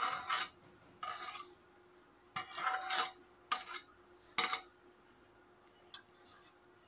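Steel ladle scraping around the inside of a bowl in about five short scrapes, the last and loudest ones a second or less apart, with a faint tick near the end, as leftover frying oil is scraped out into a cooking pot.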